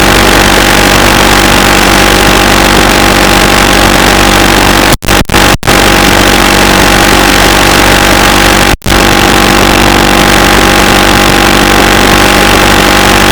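Loud, steady engine-like noise with a constant hum running through it, broken by brief sudden gaps about five seconds in and again near nine seconds.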